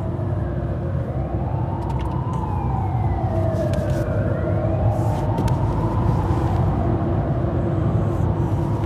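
Car driving, heard from inside the cabin as a steady low rumble of engine and road. A siren wails over it, rising and falling slowly twice in the middle.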